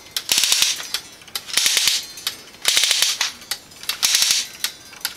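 Large 3D-printed Roskopf-replica watch being wound by hand: five bursts of rapid ratchet clicking, about one a second, one per winding stroke as the mainspring is wound up from nearly run down. The escapement ticks between the strokes.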